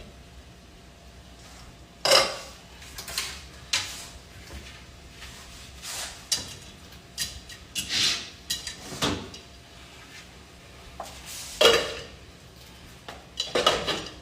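Pots, lids and utensils clattering: irregular knocks and clinks every second or so, the sharpest about two seconds in and again near the end.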